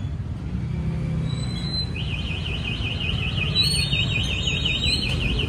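Busy street traffic rumbling. About two seconds in, a rapidly warbling electronic beeper tone starts up, sweeping up and down about six times a second, and keeps going.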